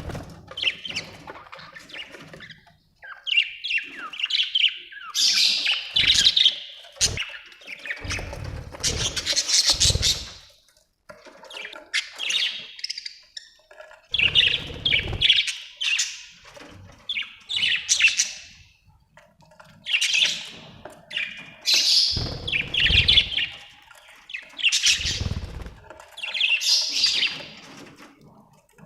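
Budgerigars chirping and warbling in bursts of fast, squeaky chatter with short pauses between them. A low rumble sounds under the chirps several times.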